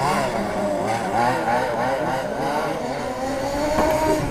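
Radio-controlled model race trucks' motors running round the track, their pitch rising and falling quickly as they speed up and slow; near the end one passes with a falling pitch.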